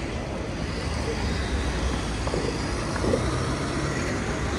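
Town-centre street ambience: motor traffic running past, with voices of people nearby.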